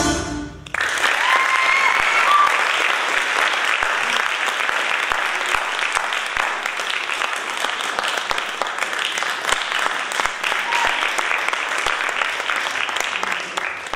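Dance music cuts off about half a second in. Then a theatre audience applauds steadily.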